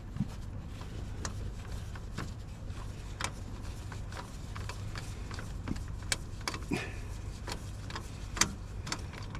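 Irregular clicks and small metallic knocks of hand tools and parts being worked on in a car's engine bay, over a steady low hum.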